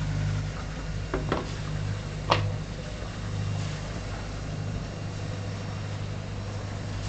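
A motor running with a steady low hum, and a few short knocks about a second and two seconds in.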